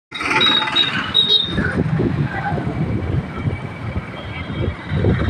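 Street traffic heard from a moving two-wheeler: a steady engine and road rumble with gusty low noise, and a few short high beeps in the first second and a half.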